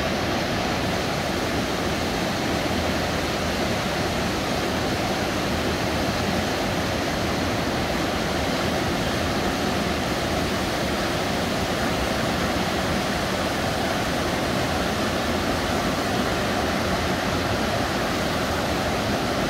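River water rushing over and between large boulders in small cascades and rapids: a steady, even rush.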